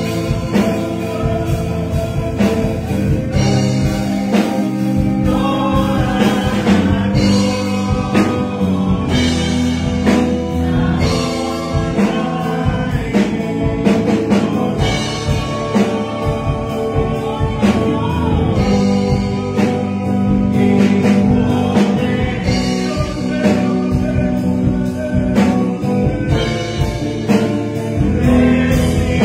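A man singing a Spanish-language worship song into a microphone over instrumental backing with a steady beat.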